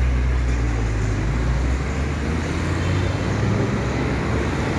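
Motor vehicle engine running close by with a steady low drone, over general street traffic noise.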